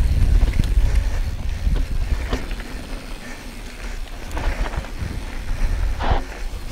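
Wind buffeting an action camera's microphone over the tyre rumble, rattle and sharp clicks of a Yeti SB6c full-suspension mountain bike riding a dirt singletrack, with the rider's hard breathing now and then. It is loudest in the first couple of seconds and eases about three seconds in.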